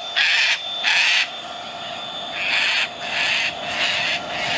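A crow cawing in two series of harsh, drawn-out calls, about two a second, with a pause between the series. A steady thin high tone runs underneath.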